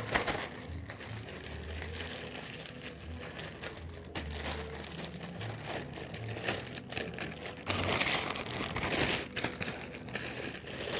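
Clear zip-top plastic bag crinkling and rustling as hands squeeze and knead a wad of crushed-chip burrito dough inside it, a little louder about eight seconds in.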